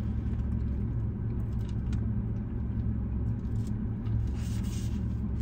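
A car engine running, a steady low rumble, with a few faint small clicks.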